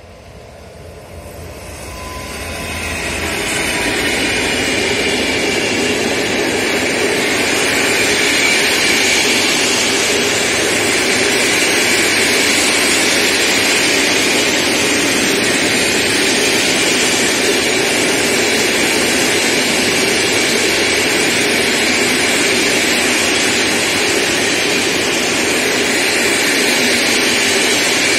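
Electric locomotive passing and then a long freight train of flat wagons rolling by. The sound builds over the first three or four seconds and then holds as a steady, loud rolling noise of steel wheels on rail.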